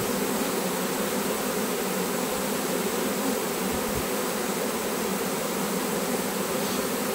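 A honeybee swarm buzzing, hundreds of bees flying around the clustered swarm close by, a steady, even hum.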